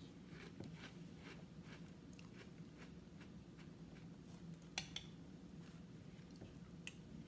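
Faint chewing of milk-soaked Rice Krispies, with soft crunches every half second or so, and a spoon scraping and clicking in the cereal bowl. One sharper click comes about five seconds in.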